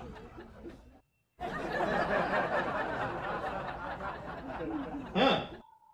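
Indistinct chatter with chuckling, broken by a sudden dead gap about a second in, with a short louder burst near the end before it drops away.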